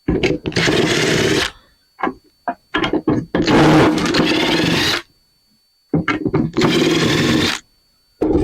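Handheld power tool motor running in three bursts of about a second and a half each, with short clicks and rattles of parts being handled in between, as a scrap light fixture is taken apart.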